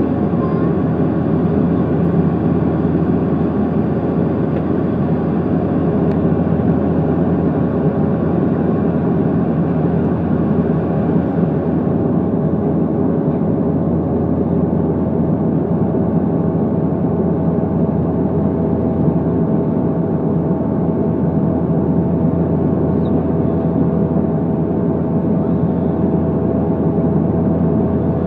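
Steady jet airliner cabin noise on the landing approach, heard inside the cabin: a constant engine drone with rushing airflow and a few steady humming tones, the landing gear extended.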